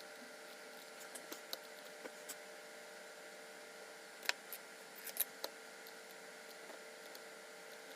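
Scattered light clicks and taps, the sharpest about four and five seconds in, over a faint steady electrical hum of equipment.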